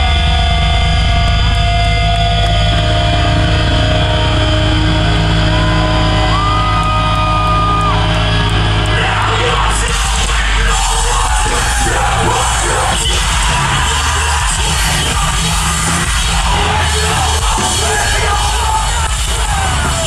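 Live metalcore band: a droning low chord held with a high whine that slides up, holds and drops back, then about ten seconds in the full band comes in with drums and screamed vocals.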